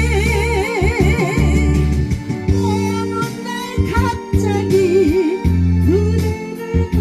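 Korean trot song playing over a backing track of bass and keyboard chords. A melody note with heavy vibrato is held for about a second and a half at the start, and a shorter wavering note comes about five seconds in.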